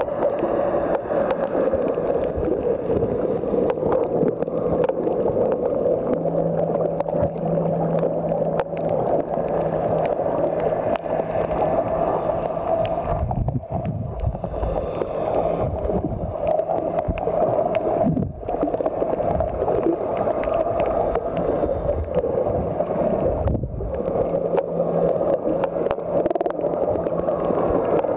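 Muffled underwater noise heard through a submerged camera over a coral reef: a dense, steady watery rush with a faint steady hum. It briefly dips three times, about halfway through, a few seconds later and again near the end.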